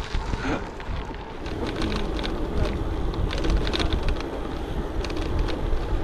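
Wind buffeting the microphone in a heavy low rumble while a gravel bike rolls along, with a steady crackle of tyres over a rough surface.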